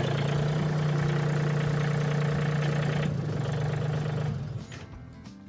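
Farm tractor engine idling steadily, then shut off about four seconds in.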